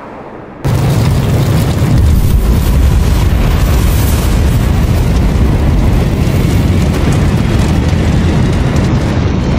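Sound-effect explosion: after a brief lull, a deep boom hits just under a second in and carries on as a dense, continuous rumble.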